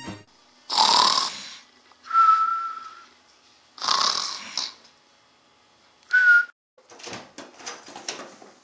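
A comic sleeping sound, a snore followed by a whistle, done twice: a breathy, rasping in-breath, then a single steady whistled note. The second whistle is shorter and slightly higher. Soft rustles and clicks follow near the end.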